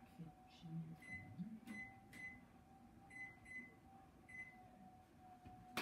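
About six short, faint electronic beeps at uneven intervals: the keypad of a kitchen timer being pressed as it is set for the bread's bake. A faint steady hum runs underneath.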